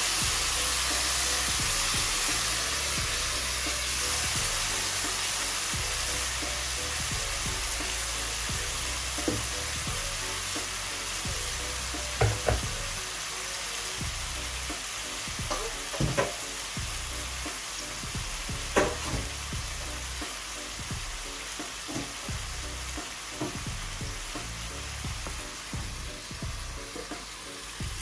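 Curried chicken back pieces sizzling as they fry in hot oil in a pot, the sizzle slowly dying down. A few sharp knocks of the stirring utensil against the pot come about halfway through.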